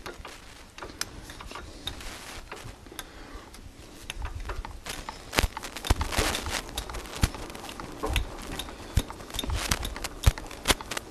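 Lathe chuck being turned by hand to work a 5-40 threading die on a tie rod, with irregular clicks, knocks and scraping of metal on metal, busier and louder in the second half.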